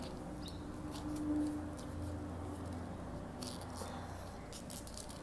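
Faint clicks and light rustling of a wristwatch's strap and buckle being handled and fastened on a wrist, with a small cluster of clicks a few seconds in.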